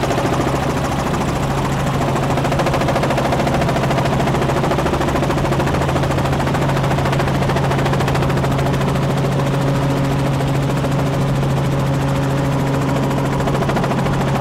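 Helicopter heard from inside the cabin: a steady rapid beat of the rotor blades over a constant low engine hum, with a second, higher tone joining about ten seconds in as it comes down toward landing.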